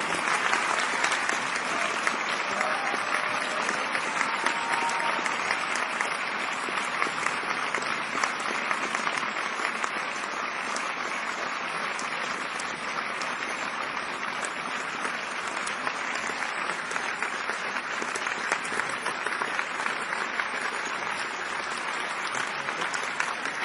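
A large audience applauding in a big theatre: dense clapping from many hands that starts abruptly and holds steady.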